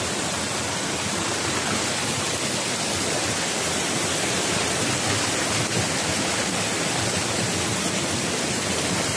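Rocky stream rushing over boulders in small whitewater cascades, a steady, even rush of water.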